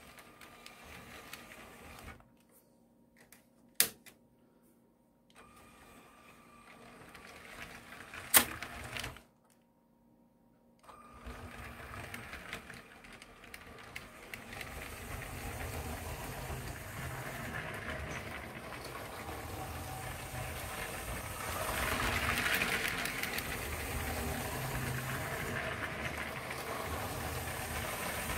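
Lego 60198 cargo train's Powered Up motor running the train along plastic track, a steady small-motor whir with wheel noise that grows louder as the train comes nearer in the second half. Early on the sound stops and starts, with two sharp clicks about four and eight seconds in.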